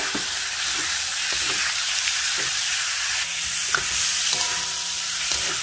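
Squid pieces sizzling in hot oil and fresh chili satay paste in a wok, stirred with a spatula that scrapes and taps the pan now and then.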